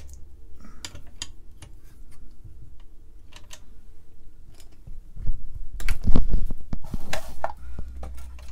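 Small clicks and taps of hands handling a metal circuit-board holder clamp on a workbench, then a louder cluster of dull knocks and bumps against the bench a little past the middle.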